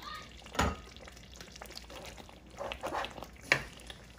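Thick berbere stew sauce simmering in a pot, bubbles bursting through it with soft plops, a few louder ones about half a second in and near the end, while a wooden spoon stirs through it.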